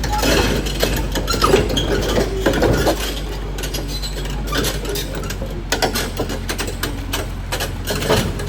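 Caterpillar D6R XL bulldozer's diesel engine running steadily, with irregular metallic clanking and clinking from its steel tracks and undercarriage as it crawls along.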